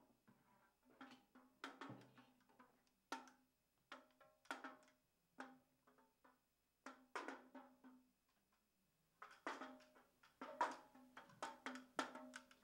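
Small Chinese drum struck by hand in a loose, irregular rhythm, faint. Each stroke is a sharp tap with a short pitched ring, and there is a brief pause about two-thirds of the way through.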